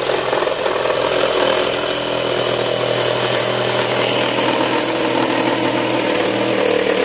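Black+Decker 20-volt cordless reciprocating saw running steadily, its blade cutting through a clamped wooden board.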